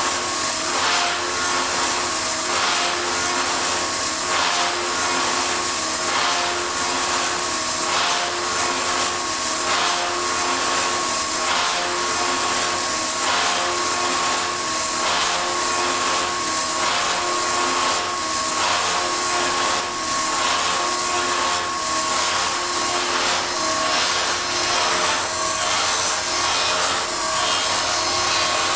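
SKF 4.22 wood copy-milling machine running and milling a wooden workpiece: a steady motor and cutter whine over the noise of the cut, with a regular pulsing.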